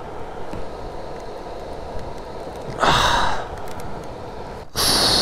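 A person's heavy breathing: a loud sigh about three seconds in, then a hissing breath near the end, over a steady rumble of wind on the microphone.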